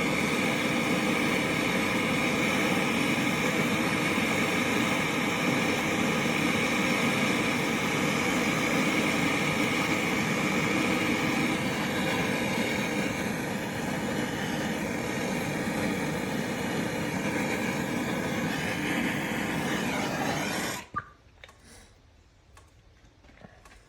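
MAP gas torch burning with a steady hiss while heating a drain-cleaning flexshaft cable for silver soldering. It is shut off abruptly with a click about 21 seconds in, followed by a few faint clicks.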